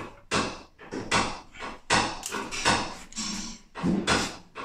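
Slide hammer of a glue-pull dent repair kit knocking: a run of about a dozen sharp knocks, irregularly spaced at roughly two a second, as glue tabs are pulled on a car body panel.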